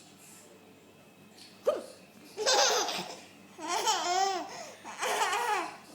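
A woman hiccups once, sharply, and a baby laughs in reply: three bursts of high-pitched giggling, each a run of quick laughs.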